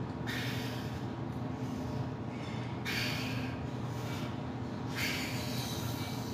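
A weightlifter's forceful breaths through bench-press reps: three hissy exhales about two seconds apart, over a steady low hum.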